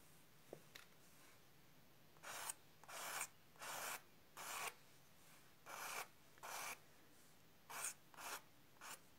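Colored pencil scratching across toned paper in about ten short strokes, drawing fine strands of hair, with brief pauses between strokes.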